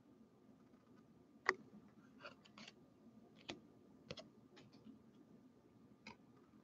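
Light clicks and ticks of a Topps Heritage baseball card being handled and flipped over between the fingers: one sharp click about a second and a half in, then a scatter of softer ones.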